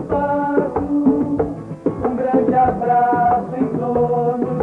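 Brazilian folk group performing a song live: an acoustic guitar strummed and a tall wooden hand drum struck by hand, with several voices singing together. The sound is dull, with no treble.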